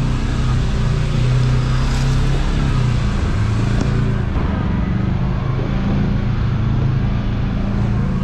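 Side-by-side UTV engine running at a steady, low pitch while driving a trail, over a rushing noise that thins out about four seconds in.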